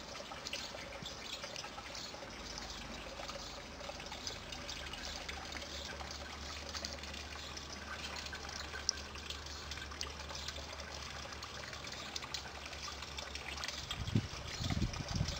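Water trickling steadily from the spout of a lion-head garden wall fountain into its basin. A few low rumbles come through near the end.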